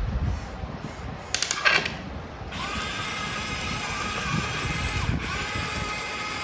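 Electric motor and gearbox of a scale RC crawler whining under throttle, with a brief clatter about a second and a half in. The whine dips for a moment near the end as the throttle eases, then picks up again.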